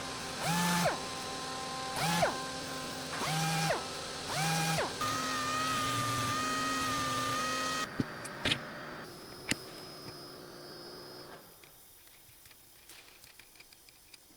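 CNC router's axis motors whining through four short rapid moves, each rising in pitch and then falling back down, followed by a steady hum and a few sharp clicks before the sound fades.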